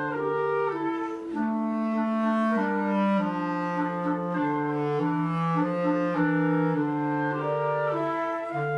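Military band wind players playing slow, held chords in several parts, with clarinet-like tones prominent and the notes changing step by step.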